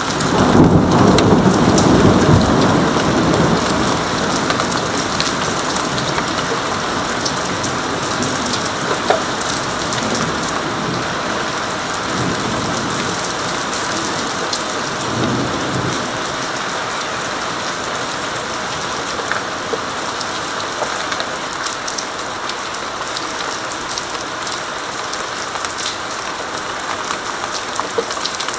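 Steady heavy rain with scattered drops ticking close by, and a long rolling clap of thunder at the start that dies away over about four seconds. Two fainter rumbles of thunder come near the middle.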